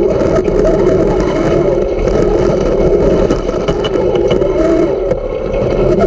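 Dirt-track race car engines running hard at speed, their pitch wavering up and down.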